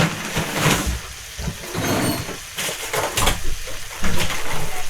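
Irregular scrapes and knocks of a utensil in a pan of pasta with mushrooms.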